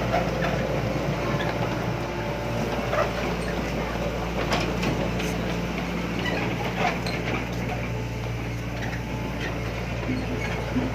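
A heavy diesel engine running steadily at a low, even pitch, with scattered light knocks and clatter over it.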